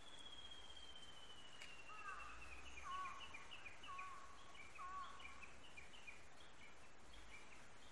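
Wild birds singing faintly: one long whistle that slides slowly down in pitch, then a string of short repeated high chirps, with lower looping calls about once a second.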